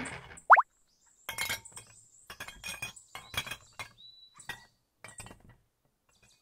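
A short, loud rising squeak about half a second in, then a run of light clinks and clatters as small glass bottles knock together on a wooden drinks trolley, some with a brief high ring.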